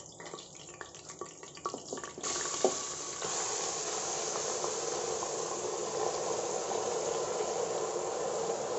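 Finely chopped onions going into hot oil in a pressure cooker. About two seconds in, a steady sizzle of frying starts suddenly and keeps on.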